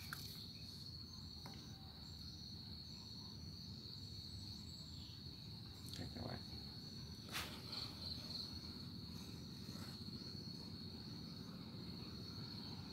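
A faint, steady high-pitched whine over low background hiss, with a couple of light clicks about six and seven seconds in.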